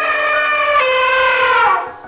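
A rooster crowing: one long, loud, held call that slides down in pitch and fades near the end.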